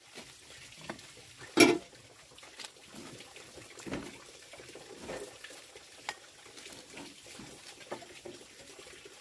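A metal pot lid clanks once, loudly, about a second and a half in. Then a plastic rice paddle scoops and turns cooked rice in a pot, with soft scrapes and light knocks against the pot's side.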